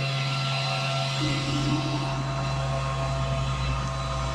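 Upgraded exhaust fan on an Xtool F1 Ultra laser engraver running steadily, a whir with a constant hum. About halfway through a deeper rumble joins in as the exhaust hose is pushed onto the fan outlet.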